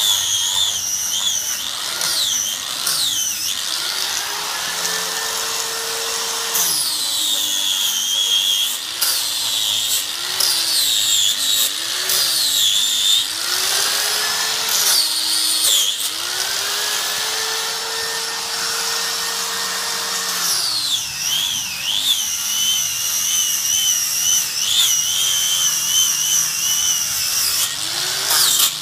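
Electric angle grinder with a disc grinding and carving into a wooden tree-root stump. It runs continuously, its high whine wavering up and down in pitch, with a lower motor tone that rises and then drops twice.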